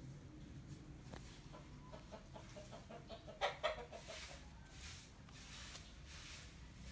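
A chicken clucking in the background: a run of short clucks through the middle, loudest as a pair about three and a half seconds in, over a low steady hiss.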